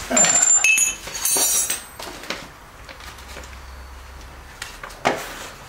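Several knocks and clatter with short, high-pitched ringing in the first two seconds, then a low hum and one more knock about five seconds in.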